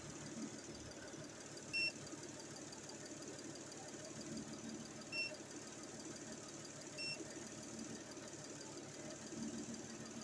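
Peugeot ES9A V6 petrol engine idling steadily. Three short electronic beeps sound over it, about 2, 5 and 7 seconds in.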